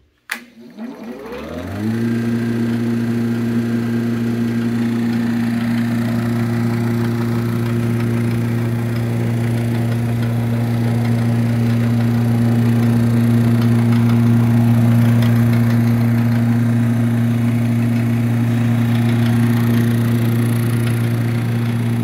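1909 Hoover Model O electric suction sweeper switched on with a click, its motor spinning up over about two seconds to a steady hum with a fan's rush, then running at constant speed.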